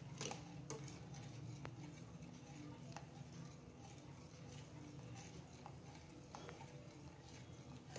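A metal ladle stirring curdled milk in a stainless steel pot: faint soft stirring with scattered light clicks of the ladle against the pot, over a low steady hum. The milk, curdled with lemon juice, is splitting into curds and whey.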